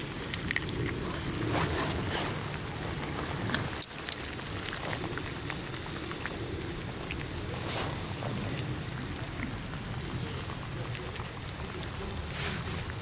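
Broth simmering in a cooking pot with tofu and vegetables, a steady bubbling with many small pops and crackles.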